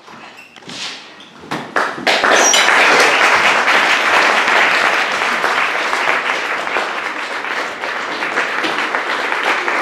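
Small audience applauding: a few scattered claps and knocks at first, then full, steady applause from about two seconds in.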